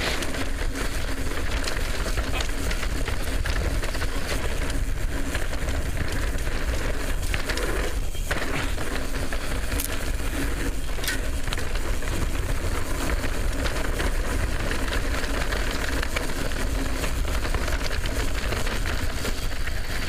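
Mountain bike descending a dry, loose dirt singletrack at speed: steady wind rush on the helmet microphone over tyre noise on the dirt, with scattered rattles and clicks from the bike.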